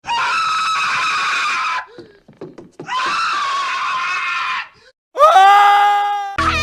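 Three separate screams from animated characters, each about two seconds long with short gaps between them. The first two are harsh and rough; the third, near the end, is clearer with a steady pitch.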